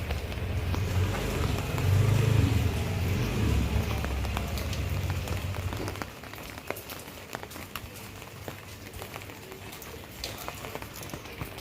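Steady rain with many scattered drip and drop ticks, and a motor vehicle engine running close by for the first half, dying away about six seconds in.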